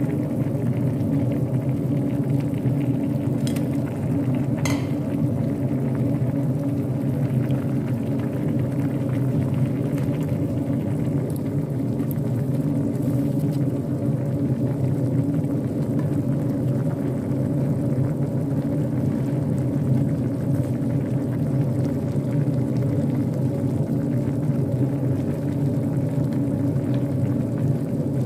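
A pot of coconut milk with bamboo shoots boiling hard on a stove: a steady low rumble of bubbling that keeps up without change.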